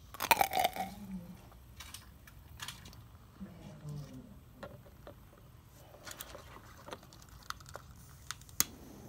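Isopropanol dripped into liquid bromine in a glass beaker, the mixture bubbling up in an exothermic reaction and giving off sharp pops and ticks: a quick cluster just after the start, scattered ticks after that, and one louder pop near the end.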